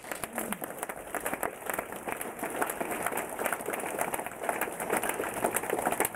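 Audience applauding: a steady, dense mass of hand clapping.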